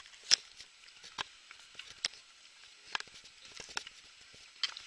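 Footsteps in sandals going down stone steps, a short sharp scuff about once a second.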